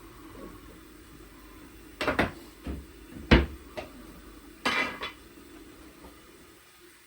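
Kitchen clatter of pots, dishes and utensils being handled: a run of knocks and clinks starting about two seconds in, the loudest near the middle, then a short rattle. A low steady hum sits underneath and fades near the end.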